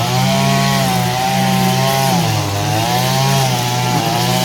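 Small petrol grass-cutting engine running under load while mowing grass, its pitch rising and falling gently every second or two.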